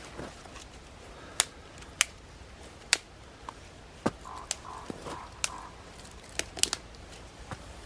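A series of sharp, irregular clicks and snaps, about nine of them, several closely bunched near the end.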